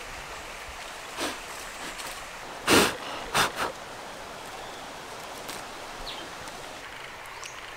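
Leafy tree branch rustling in a few short bursts as it is handled to pick berries, one burst much louder than the rest, over a steady outdoor hiss.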